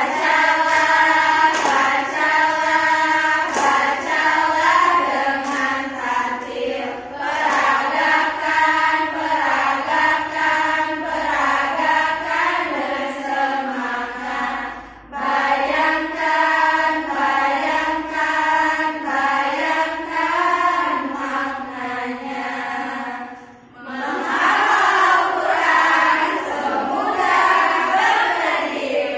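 A group of young women chanting a rhythmic yel-yel cheer in unison, a sung chant about memorising the Quran with the Syamil method. The chant breaks off briefly about 15 seconds in and again near 24 seconds.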